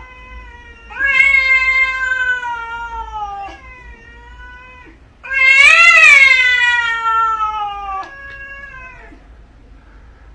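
Domestic cat yowling in a series of long, drawn-out calls, each sliding slowly down in pitch. The loudest call, about five to eight seconds in, rises and then falls.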